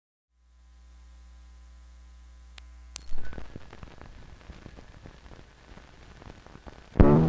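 Steady electrical mains hum from the 16mm print's playback, then a couple of sharp clicks and a loud pop about three seconds in as the film's soundtrack starts, followed by constant crackle and popping from the old worn print. Music with brass comes in just before the end.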